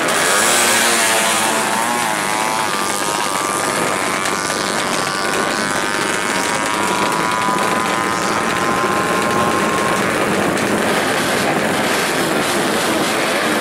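Drag bike launching and accelerating flat out down the strip. The engine's pitch climbs through the gears in the first few seconds, then holds a high, slowly rising note that fades away about ten seconds in as the bike pulls into the distance.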